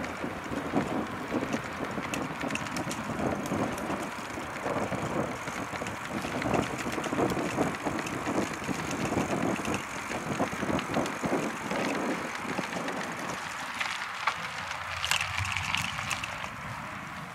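Wind buffeting the microphone of a camera carried on a moving bicycle, with steady tyre rumble on pavement. Near the end the low rumble thins and a higher hiss comes in.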